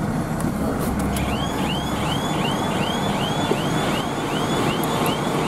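Fire truck's diesel engine running under a backing alarm that chirps steadily about two and a half times a second, starting about a second in.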